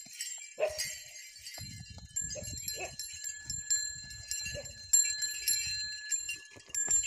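A string of small brass bells (changali) on a bullock's neck jingling and ringing as the animal moves, with louder jangles just under a second in and again about five seconds in.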